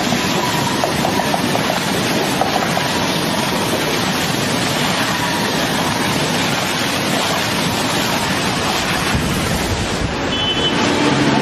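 Electric commuter train running through floodwater over the tracks: a steady, loud rushing hiss of water spray thrown up by the wheels. The rush thins near the end, with a few faint steady tones.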